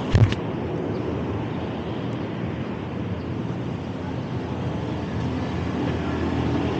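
Steady rumble of wind on the microphone and city traffic while riding a fixed-gear bike, with a couple of sharp knocks right at the start.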